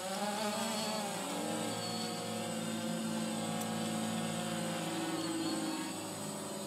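DJI Phantom FC40 quadcopter's motors and propellers whining, with its pitch wavering up and down a little as the rotors change speed.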